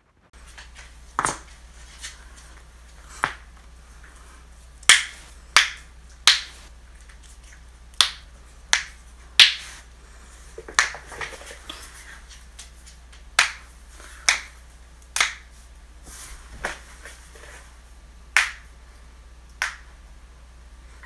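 Human joints cracking: over a dozen sharp, separate pops at irregular intervals, about one a second, over a faint steady low hum.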